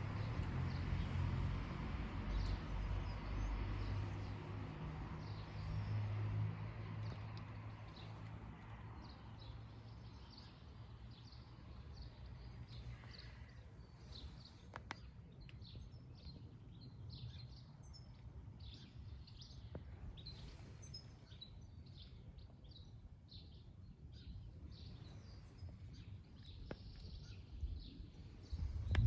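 A low vehicle rumble fades away over the first several seconds, leaving quiet outdoor ambience with birds chirping in many short, high calls.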